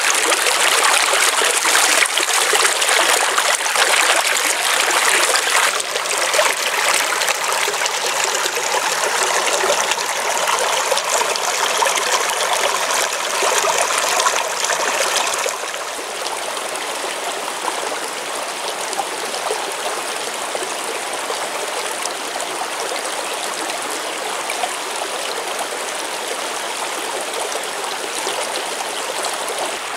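Small rocky stream running steadily over stones, a little softer from about halfway through.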